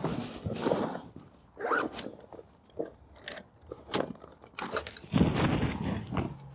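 Irregular rustling, crunching and scraping handling noise close to a microphone, broken by several sharp clicks.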